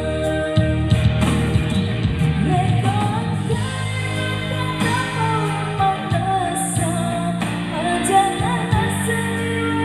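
A song: a singer's wavering melody over guitar and band accompaniment.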